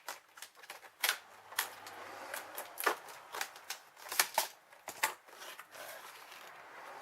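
Sharp plastic clicks and taps from a precision screwdriver kit's hard carrying case and its small bits being handled, coming irregularly through the first five seconds or so.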